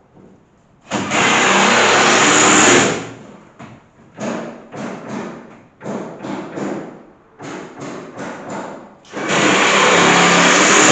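Electric drill run under the trigger in bursts. It starts about a second in and runs for about two seconds, then gives a string of short pulses, then runs for about two seconds again near the end.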